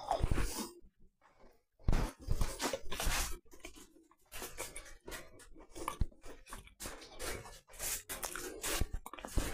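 A person chewing a bite of homemade coconut biscuit, close to a clip-on microphone, in uneven bursts of mouth noise with short pauses. The biscuit is spongy in the middle rather than crisp.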